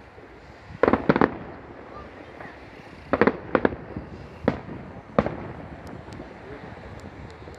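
Fireworks display: aerial shells bursting with sharp bangs. A quick cluster of three or four comes about a second in, another cluster about three seconds in, then two single bangs a little later.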